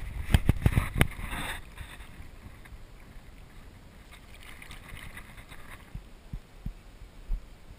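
A small largemouth bass being released by hand into a pond: a soft splash and swirl of water about four seconds in. Several sharp knocks come in the first second or so as the fish is handled.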